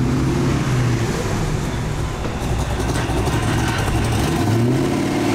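Car engine running with a steady low drone, then dipping and rising in pitch about four and a half seconds in as it revs up to pull away.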